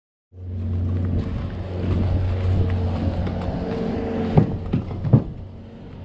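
Steady vehicle engine idling, with two sharp knocks inside the horse trailer about four and five seconds in.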